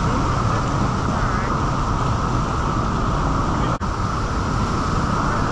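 Steady rushing of whitewater pouring down a waterfall into the pool just ahead, with a momentary dropout in the sound a little under four seconds in.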